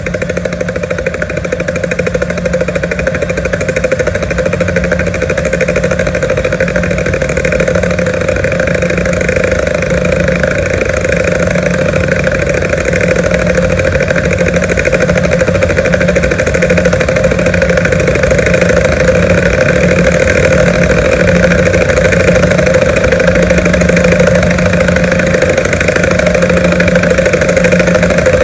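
Several helicopters flying, a steady rapid rotor beat over engine drone that grows slowly louder.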